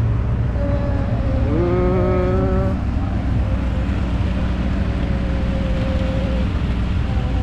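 Steady low rumble of a bumblebee car ride rolling along a bumpy dirt path, with a brief held tone about two seconds in.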